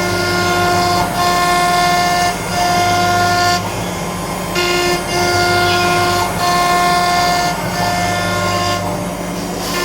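CNC router running with its dust collector: a steady low hum under a pitched whine that breaks off briefly and comes back every second or two.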